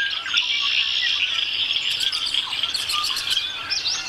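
Birds chirping and calling, many short overlapping chirps over a steady high trill.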